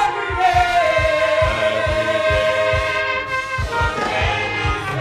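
Gospel choir and band performing a worship song: a long held vocal note over a steady bass-drum beat.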